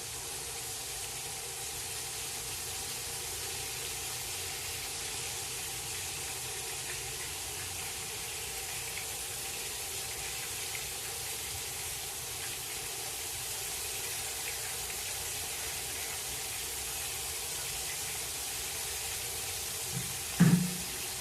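Breaded white grunt fillets sizzling steadily in hot peanut oil in a cast iron pan: the hiss is moisture boiling out of the fish. A short louder low sound comes near the end.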